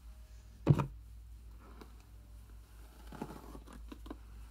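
Hands and a paddle hairbrush rustling and scraping through long hair as it is gathered and brushed up into a ponytail, in a few soft strokes. One brief, loud thump comes a little under a second in.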